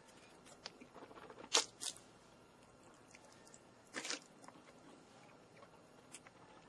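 Scattered faint crunches and clicks over a quiet background, the loudest a pair about one and a half seconds in and another around four seconds in.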